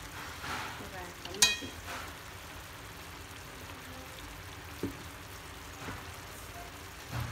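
Chicken wings sizzling steadily in sauce in a stainless steel pan. About a second and a half in there is a sharp, ringing clink against the pan, and a softer knock comes near 5 seconds.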